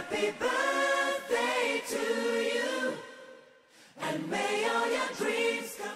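Background song of voices singing held notes, dying away about three seconds in and picking up again a second later.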